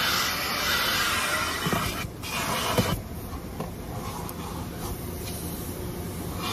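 Automatic car wash spraying the car with a loud hiss, which cuts off about three seconds in and leaves a steady, quieter rush.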